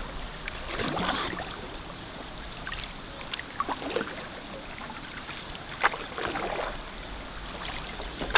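Canoe paddle draw strokes: the blade swishes and splashes through the water several times, with drips as it is slashed back out. A low wind rumble on the microphone runs underneath.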